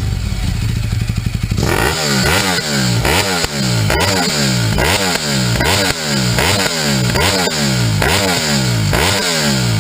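Sportbike engine with an aftermarket exhaust, idling briefly, then blipped by the throttle over and over, about two quick revs a second, each rising sharply and dropping back.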